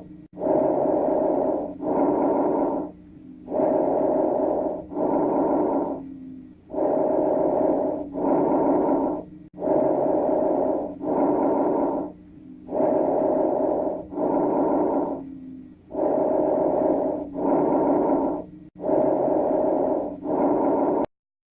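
Auscultation recording of a patient's breathing with a continuous musical tone running through both inspiration and expiration. There are seven breaths, each with two loud phases and a short pause between breaths, and the sound cuts off abruptly near the end.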